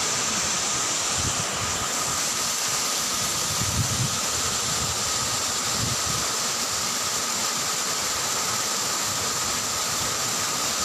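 Waterfall rushing: a steady, even noise of falling water, with a thin steady high tone running over it.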